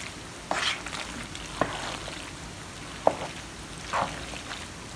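A spoon stirring thick, sauced pasta and shredded cheese in a metal pot: about four short, wet squelching strokes over a faint hiss from the pan.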